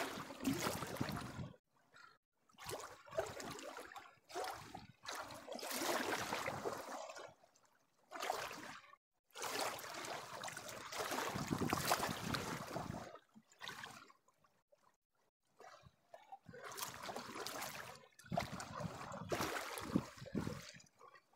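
Small river waves washing and lapping against the bank in irregular surges, each a second or two long, with short silent gaps between them.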